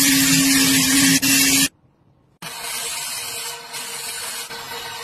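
Hand-held electric spin scrubber running, its motor humming steadily while the spinning brush hisses loudly across a stovetop; it cuts off suddenly after about a second and a half. After a short gap it runs again more quietly with a higher hum, scrubbing a shoe sole under a running tap.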